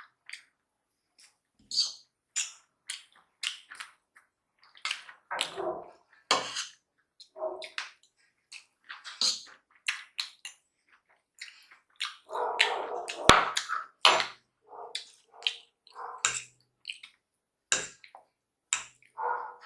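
Close-up mouth sounds of someone eating noodles: irregular wet smacks and clicks of chewing, with a longer, fuller slurp-like burst about two-thirds of the way through.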